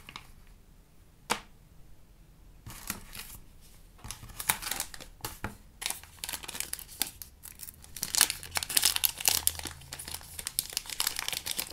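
Plastic packaging crinkling and tearing as it is handled and opened, with a single click about a second in and the crackling growing denser toward the end.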